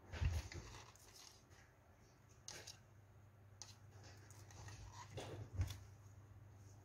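Faint handling noise of a Mattel plastic toy horse being turned in the hands: a few scattered light taps and rustles, the loudest near the start and again about five seconds in, over a low steady hum.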